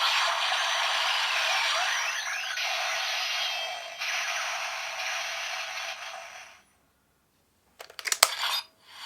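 A hissing, crackling sound effect played through a small toy speaker, thin with no bass, which cuts off suddenly about six and a half seconds in. After a second of silence comes a quick cluster of sharp plastic clicks near the end.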